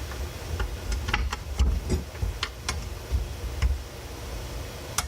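Scattered light metallic clicks and taps as drum brake hardware is lined up and fitted by hand, some in quick pairs and triplets, over a low handling rumble.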